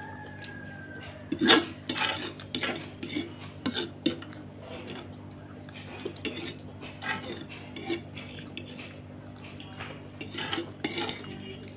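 A metal fork scraping and clinking against a plate, picking up the last leftover noodles: irregular clicks and scrapes, loudest about a second and a half in.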